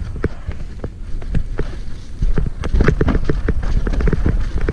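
Hardtail mountain bike clattering down a rough, muddy trail: rapid irregular knocks and rattles from the frame, chain and tyres striking roots and ruts over a low rumble, growing denser and louder about two seconds in.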